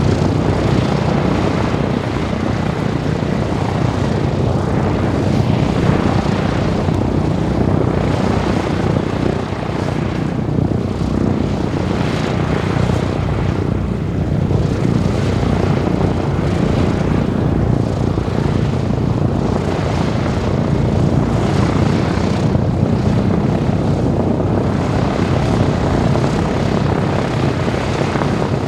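Four Wright R-1820 Cyclone radial engines of a B-17G Flying Fortress running steadily, with a slow swell and fade every couple of seconds.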